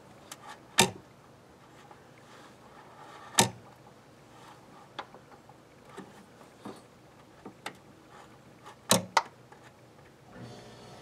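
Hand pick tapping and scraping inside a clogged sunroof drain opening in a car body, digging out debris: scattered sharp clicks and ticks, the loudest about a second in, at about three and a half seconds, and a close pair near the end.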